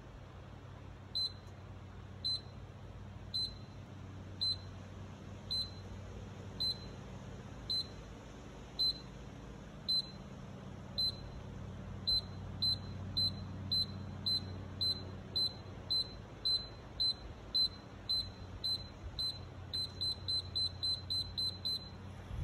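Automatic chicken coop door's warning alarm beeping before the door closes at sunset: short high beeps about once a second, speeding up to about two a second and then faster still near the end.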